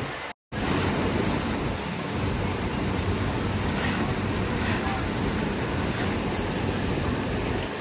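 Steady machine hum and clatter of a garment factory's sewing floor, with voices mixed in the din. The sound cuts out briefly near the start.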